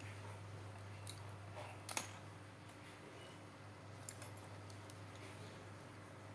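A few small, sharp clicks and taps of watchmaker's tools on a wristwatch being worked on, the loudest about two seconds in, over a steady low hum.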